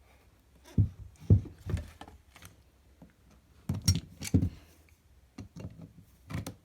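Scattered knocks, clicks and rattles of hands and tools working on a small lawnmower engine while a fuel hose is worked loose.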